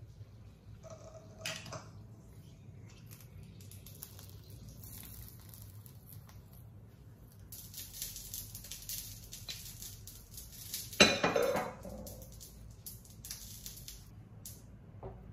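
Cooked rice being mixed in a non-stick pot with a silicone spatula: soft scraping and light knocks of the spatula against the pot, with one louder clatter about two-thirds of the way through.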